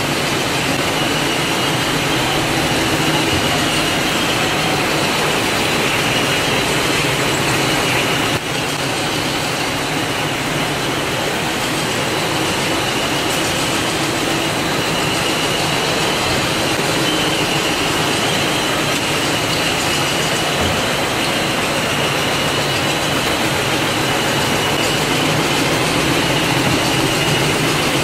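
Servo-driven wood rotary cutting machines (veneer peeling lathes) running as logs are peeled into veneer: a steady mechanical din with a high whine and a low hum, briefly dipping about eight seconds in.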